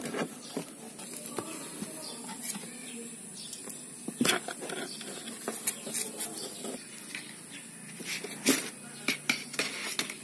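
Kittens scuffling and wrestling in a cardboard box: claws scratching and scraping on the cardboard, with irregular sharp clicks and light knocks, the loudest about four seconds in and again past eight seconds.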